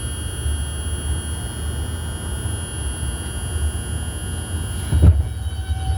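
R142 subway train running with a steady low rumble and a constant high-pitched whine, with a knock about five seconds in.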